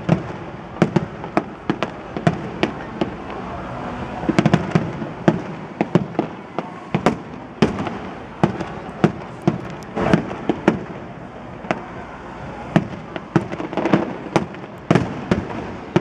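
Fireworks display: aerial shells bursting in a rapid, irregular run of sharp bangs, several a second.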